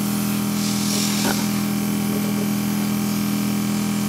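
LuminessAir airbrush makeup compressor running with a steady hum, and air hissing from the airbrush gun, which blows air as soon as the compressor is switched on.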